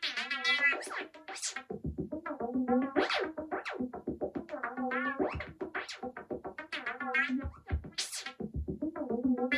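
Electronic music: synthesizer lines over a steady beat.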